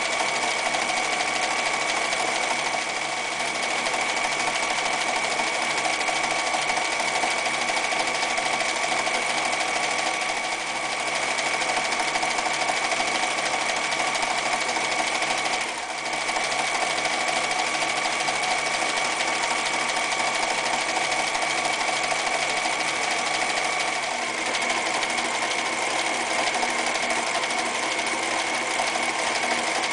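Frister + Rossmann 1080 sewing machine running steadily, stitching decorative stitches through fabric, with a steady motor whine; it slows briefly about halfway through, then carries on.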